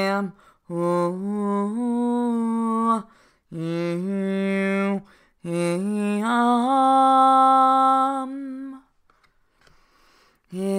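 A voice chanting light language: wordless syllables sung in long held notes that step up and down in pitch, in three phrases broken by breaths, then about two seconds of quiet near the end.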